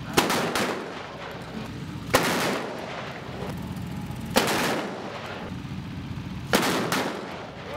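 Single-action .45 revolvers firing powder-only blank loads in fast draw: four loud shots about two seconds apart, each trailing off over about half a second.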